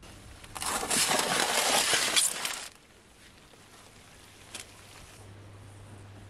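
Metal baking pan scraping across the ash-covered floor of a wood-fired brick oven as it is pulled out, one rough scrape lasting about two seconds.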